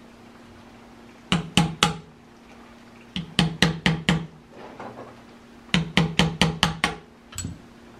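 Small brass-headed hammer tapping metal on metal, driving a small pin into an M1 Garand part. The taps come in three quick bursts of several strikes each, about four a second, with one lighter tap near the end.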